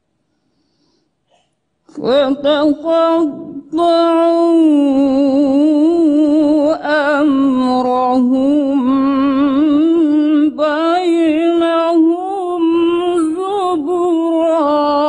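After about two seconds of silence, a woman begins reciting the Quran in the melodic tilawah style. She sings long, ornamented phrases with a wavering pitch, nearly without a break.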